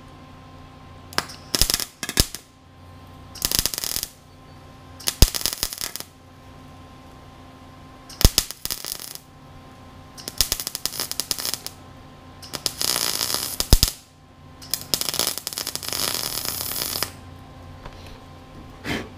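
Craftsman 110-volt wire-feed welder on its lowest setting, welding up rust pinholes in thin, rusty sheet metal in short crackling bursts, about eight of them, each from half a second to two seconds long, with short pauses between. A faint steady hum runs underneath.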